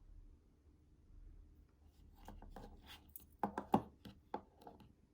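Small tools being handled and set down: a run of sharp clicks and light knocks in the second half, loudest about three and a half seconds in.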